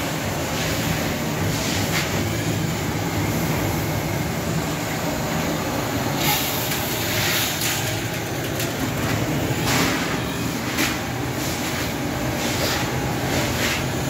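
Commercial laundry machinery running with a steady low mechanical hum. Irregular knocks and clatter come through from about six seconds in.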